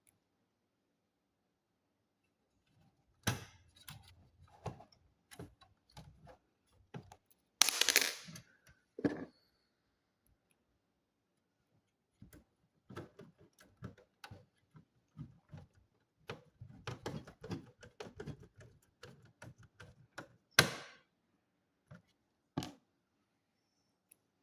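Scattered clicks, taps and knocks of hands and tools working on the parts of an all-in-one PC during a RAM upgrade. There is a louder rustling scrape about eight seconds in and sharp single clicks near the end.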